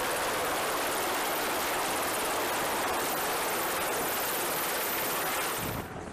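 MH-60 Seahawk helicopter running, a steady dense rush of rotor and engine noise that cuts off abruptly near the end.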